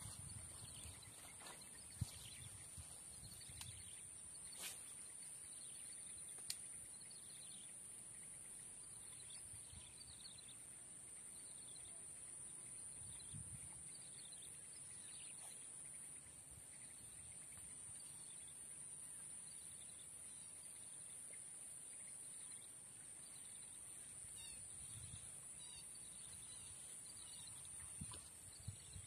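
Faint swamp ambience: a steady high-pitched insect drone, with small birds chirping now and then and a few sharp clicks in the first seconds.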